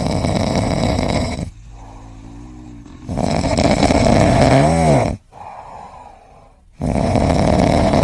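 A pet snoring loudly: three long snores about three and a half seconds apart, the second ending in a brief rising-and-falling whistle.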